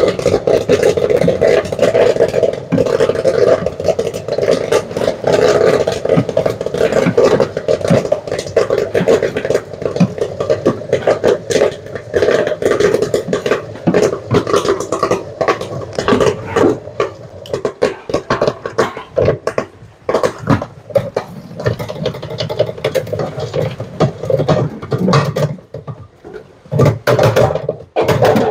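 Corn kernels popping in a popcorn machine's pot with a 12-volt motorised stirrer: a dense crackle of pops over a steady hum, the popping thinning out toward the end as the batch nears done.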